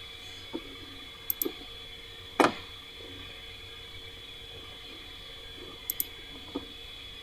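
Computer mouse clicking: two quick double clicks, about a second in and about six seconds in, over a steady background hiss with a faint steady whine. A louder short noise comes about two and a half seconds in.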